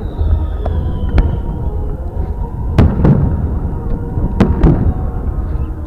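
Fireworks salute going off: sharp bangs at irregular intervals, a loud pair about three seconds in and another pair about four and a half seconds in, over a steady low rumble.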